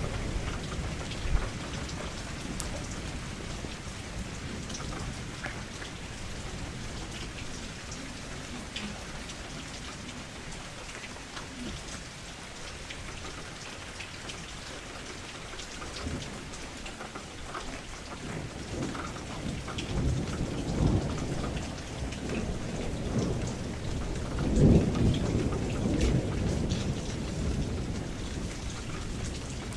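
Steady rain against a window, with scattered ticks of single drops. Low rolling thunder builds from about two-thirds of the way in and is loudest near the end.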